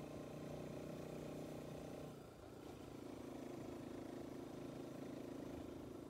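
Motorcycle engine running faintly as a steady hum, its pitch shifting about two seconds in.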